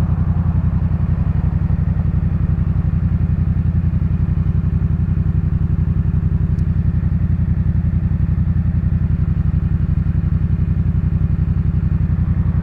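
Yamaha MT-07's 689 cc parallel-twin engine idling steadily through a Jeskap K4 full aftermarket exhaust, a loud, even, fast-pulsing burble with no change in pitch.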